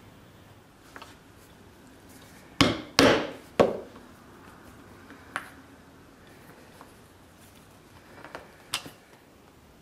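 Three loud knocks in quick succession a few seconds in, from the camera being bumped and moved at the workbench, followed by a few light clicks and taps of hand tools and leather near the end.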